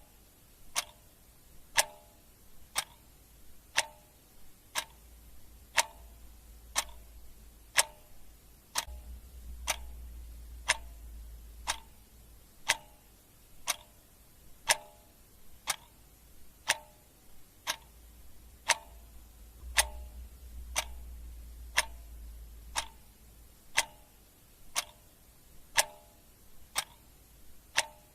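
Clock ticking sound effect, steady at about one tick a second, with sharper ticks and duller tocks alternating, over a faint low hum.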